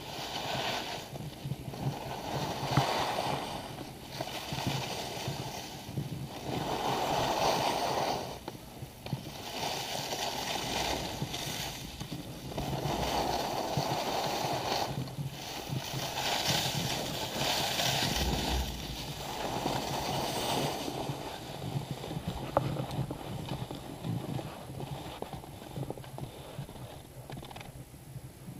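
Skis scraping over packed snow in a series of turns, a hissing swell with each turn about every two to three seconds.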